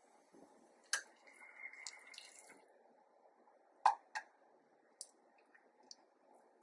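Silicone spatula stirring thick soy-sugar glaze in a small stainless steel pan: a few scattered soft clicks and knocks of the spatula against the pan, the loudest about four seconds in, with a brief scraping stir near the start.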